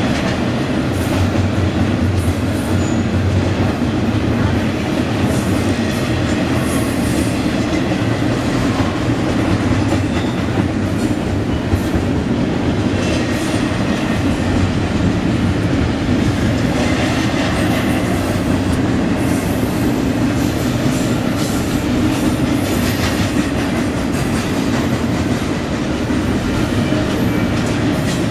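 Double-stack container train's well cars rolling past steadily, steel wheels on the rails making a continuous loud rumble, with faint high squeals now and then.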